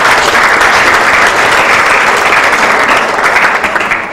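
Audience applauding, dying down at the very end.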